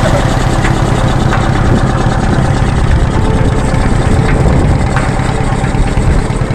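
A vehicle's engine running steadily under way, with a constant low hum and road noise.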